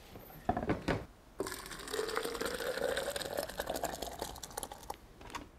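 Blender motor running as it purées hot curry, with liquid churning inside; it starts about a second and a half in, its pitch rising slightly, and stops near the end. A few clicks come before it starts.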